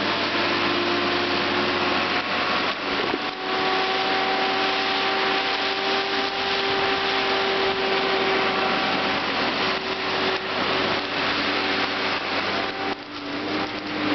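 Timbco tracked feller buncher running hard, its diesel engine and hydraulics loud and steady. A whine on top of the engine steps up slightly a few seconds in and drops back near the end, with a few brief knocks.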